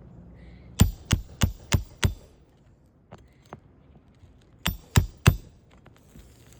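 Hammer driving a roofing nail into a shingle: five quick strikes, two light taps, then three more strikes.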